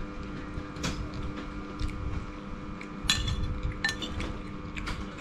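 Metal spoon and fork clinking and scraping against ceramic dishes while eating noodles: a few sharp clinks, the loudest with a short ring about three seconds in.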